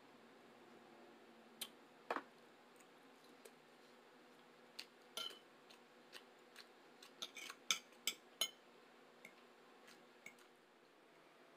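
Scattered clicks and crackles of a printed food package being handled close to the microphone, busiest and loudest about seven to eight and a half seconds in.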